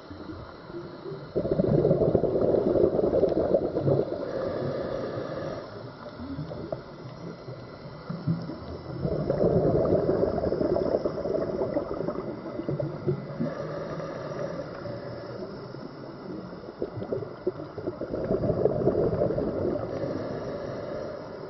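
Scuba diver's exhaled bubbles gurgling from the regulator in three long bursts about eight seconds apart, with quieter water noise between breaths.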